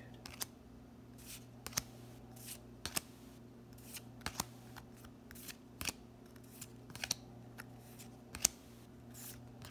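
Dragon Ball Super Card Game trading cards being flipped through by hand, each card slid off the front of the stack to the back with a short papery snap, a dozen or so at an uneven pace of roughly one a second. A steady low hum runs underneath.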